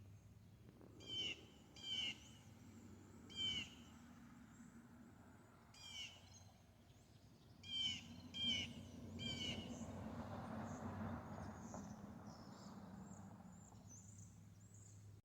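Bird calls: a short chirping call, each a quick run of falling notes, repeated about seven times at irregular intervals over a steady low background hum.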